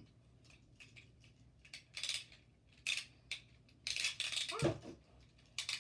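Hard plastic clicking and rattling as a Beyblade spinning top is handled and fitted onto its launcher, in several short bursts about a second apart, the longest about four seconds in. A brief sliding voice sound comes just after it.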